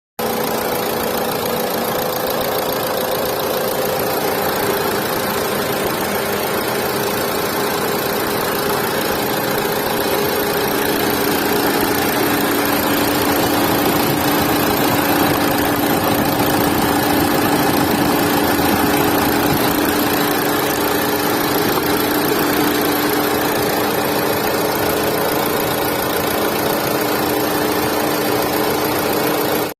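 Renault Duster diesel engine running steadily, with the heavy engine noise that the video presents as a fault.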